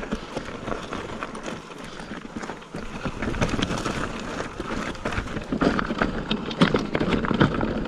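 Irregular clattering and knocks of a mountain bike on rough, rocky trail ground, quieter at first and busier from about three seconds in.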